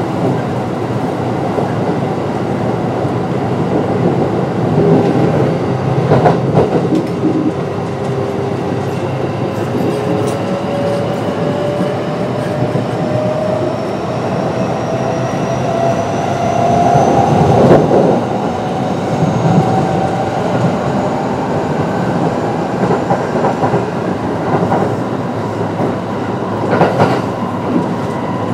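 Kintetsu 9020 series electric train running, its Mitsubishi IGBT-VVVF inverter and traction motors whining in thin tones that rise slowly in pitch as it gathers speed. Steady wheel and rail noise runs underneath, with a few sharp clacks over rail joints.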